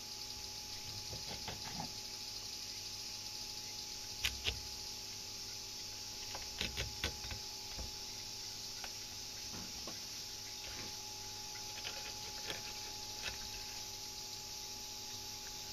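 A chef's knife filleting a small fish on a wooden cutting board: quiet slicing with a few sharp clicks of the blade against the board, a pair about four seconds in, a cluster near seven seconds and a few more near the end, over a steady hiss and faint hum.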